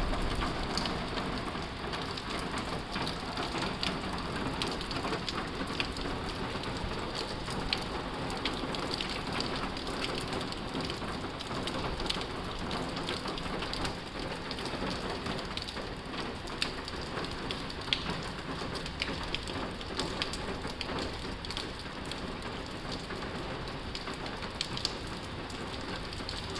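Heavy rain pouring steadily on a tin roof, with many sharp drops ticking over the constant hiss.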